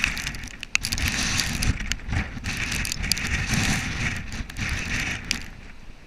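Hurricane eyewall wind gusting hard against the microphone, with scattered sharp ticks and crackles. It eases near the end.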